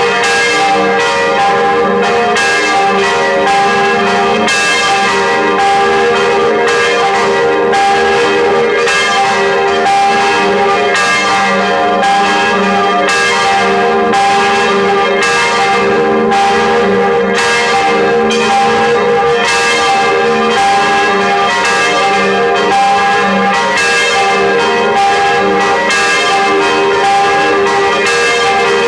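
Church bells in a full peal: several bells strike over and over in an uneven, overlapping pattern. Their tones ring on continuously at a steady level.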